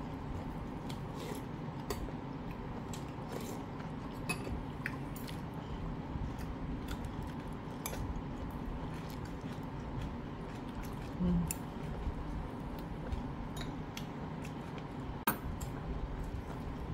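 Metal chopsticks clicking now and then against ceramic dishes, with a sharper click about fifteen seconds in, and chewing. A steady low hum runs underneath.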